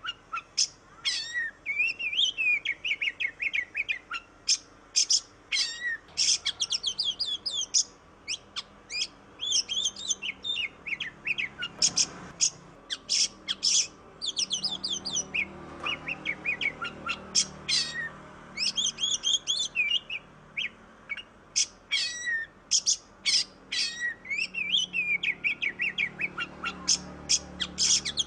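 Oriental magpie-robin (kacer) singing a long, varied song of rapid chirps, clear whistles and fast trills, barely pausing.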